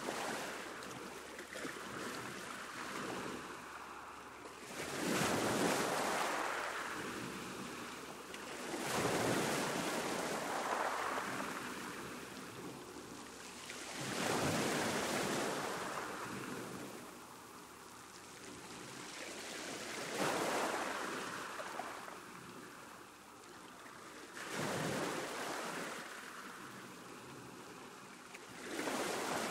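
Sea waves breaking on a shore, one about every five seconds, each swelling into a rush of surf and then washing back and fading.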